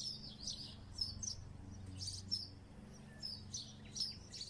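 Small songbirds chirping and twittering in short high calls, repeated throughout, over a low steady hum.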